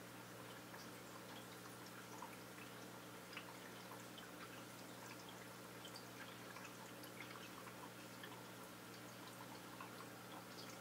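Faint aquarium water sounds: a steady low hum with many small, irregular drips and plinks.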